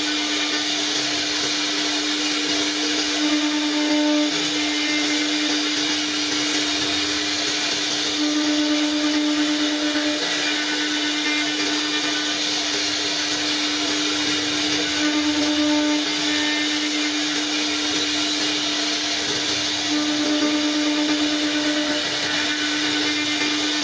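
CNC wood router running: a steady high whine with a dense hiss over it, swelling slightly every few seconds.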